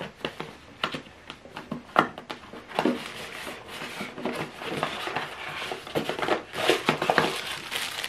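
Packaging being handled: scattered knocks and taps from a cardboard box and its inserts, then continuous crinkling of a plastic bag from about halfway through.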